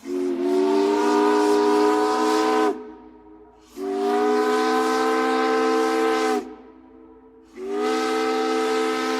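Steam whistle blowing three long blasts, each a chord of several steady pitches over a hiss of steam, with a short gap between blasts.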